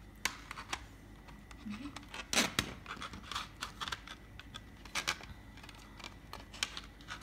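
Plastic CD jewel case being handled: scattered clicks and taps as it is turned over and set down on the floor, the loudest about two and a half seconds in.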